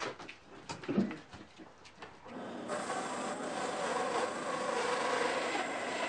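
A few wooden knocks and thumps as a log is rolled and shifted by hand. Then, from about two and a half seconds in, the steady running noise of a wooden-framed bandsaw used as a log sawmill.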